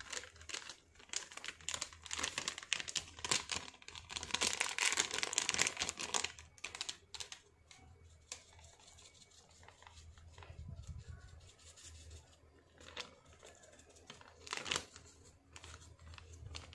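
Plastic meat masala spice packets crinkling and being torn open, with a dense spell of rustling for the first six seconds or so, then quieter, with a few more crinkles near the end.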